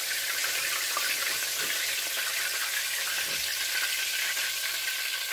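Breaded steak fingers deep-frying in about an inch of hot oil in a cast-iron skillet: steady sizzling.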